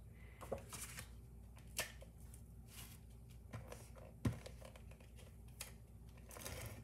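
Faint clicks and short rasping strokes of a Stamp & Seal tape runner laying adhesive on a cardstock panel, with one sharp thump about four seconds in.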